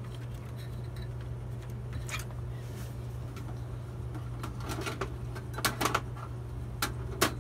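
A few sharp clicks and knocks of metal and plastic computer parts being handled inside an open desktop PC case, most of them in the last two seconds, over a steady low hum.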